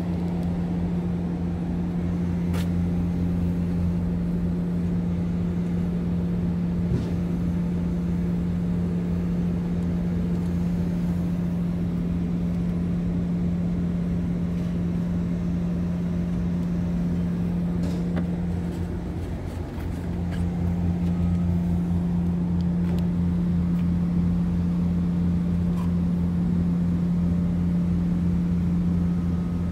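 Scania R450's 13-litre inline-six diesel idling steadily at an even pitch, with a brief dip in its hum about twenty seconds in.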